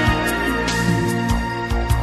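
Instrumental music: sustained chords over a beat of drum hits.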